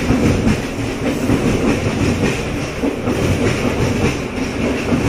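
Loud, steady rumbling background noise with a rapid rattling texture.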